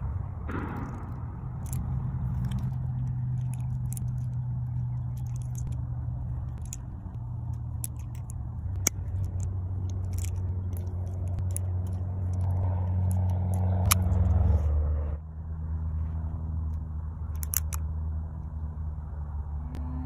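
Revolver being handled and loaded: scattered sharp metallic clicks from cartridges going into the cylinder and the action being worked, over a low steady hum that shifts in pitch a few times.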